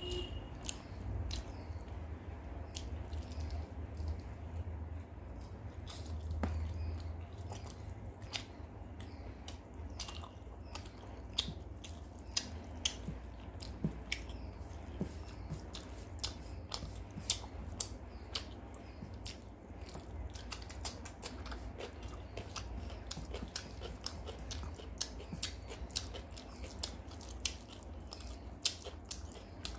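Close-up chewing of a mouthful of rice and chicken curry eaten by hand, with many short, wet clicks and smacks of the mouth and lips.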